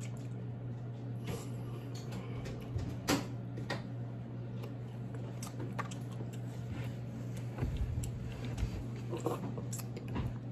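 Eating king crab: scattered small clicks and cracks of crab shell being picked apart and chewed, over a steady low room hum, with a few dull thumps about eight seconds in.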